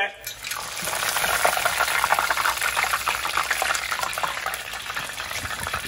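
Tempura-battered shrimp deep-frying in a pot of hot oil, the oil sizzling with a steady, dense crackle.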